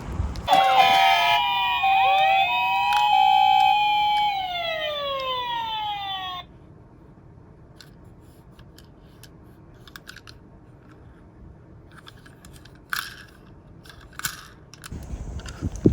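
Several emergency-vehicle sirens sounding over one another: a two-tone ambulance siren stepping between two pitches and police sirens wailing up and down. They stop suddenly after about six seconds, leaving only a few faint clicks.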